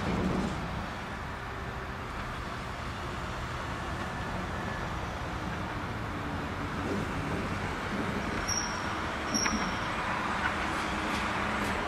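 A diesel locomotive running light past on the rails: a steady low engine drone under wheel and rail noise. Two short high-pitched squeaks come about two-thirds of the way through.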